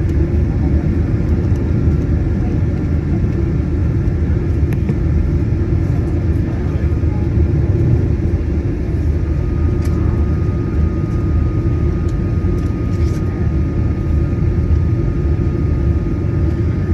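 Cabin noise of a Boeing 737-900ER: a steady rumble from its CFM56-7B engines and airflow. A faint steady whine joins about ten seconds in.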